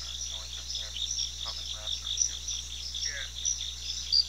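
Steady chorus of night insects, crickets by the sound of it, chirping high and continuously, with a few faint, short voice-like sounds scattered through it.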